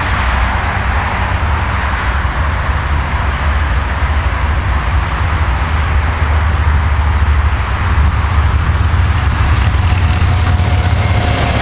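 Siemens ES64U2 (class 182) electric locomotive hauling a freight train on approach: a steady rumble of wheels on rails that grows slightly louder about seven seconds in.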